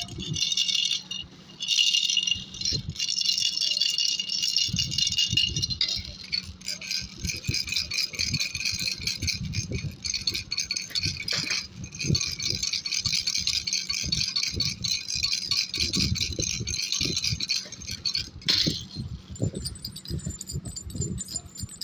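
A baby rattle being shaken continuously, with a dense jingling rattle and soft low knocks. There are brief pauses about a second in and again near the end.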